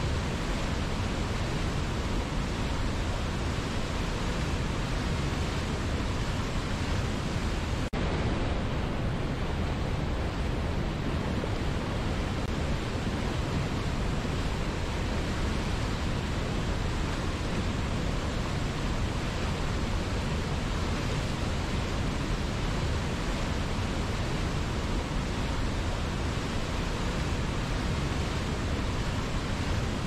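Whitewater rushing steadily over rocks below a waterfall: an even, unbroken hiss with a deep low rumble underneath.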